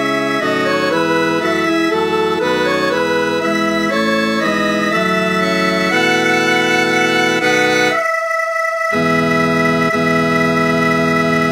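Computer-played (NoteWorthy Composer) choir arrangement on a synthesized organ sound, a soprano-part practice track: sustained chords step from note to note, the low notes drop out for about a second near the end while the upper line holds, then a long held chord.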